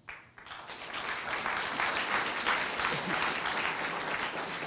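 Audience applauding, swelling up over the first second and then holding steady.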